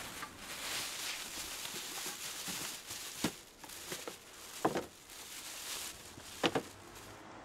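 Thin plastic carrier bags rustling and crinkling as shopping bags are set down and rummaged through, with a few sharper sounds among the rustle.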